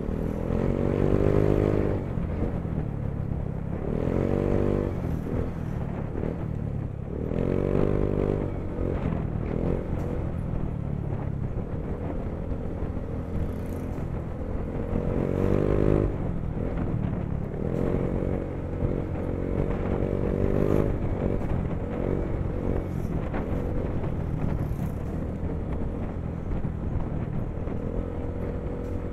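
Yamaha Mio i 125 scooter's single-cylinder engine running under way, with wind and road rumble. Its note swells and fades several times.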